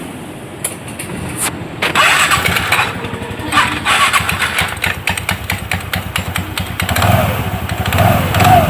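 TVS Ntorq 125 scooter's single-cylinder engine starting about two seconds in after a few clicks, then running with the clutch cover off, the freshly cleaned and refitted CVT clutch and belt turning. The engine gets louder and picks up speed near the end.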